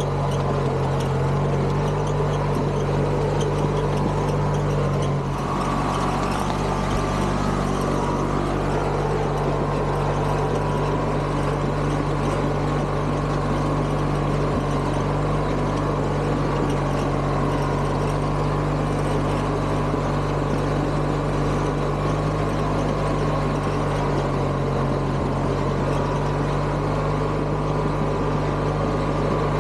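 Craftsman GT6000 garden tractor engine running steadily, its pitch shifting slightly about five seconds in.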